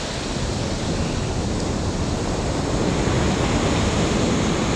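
Ocean surf washing up the sand at the water's edge, a steady rush of breaking waves and foam that swells slightly.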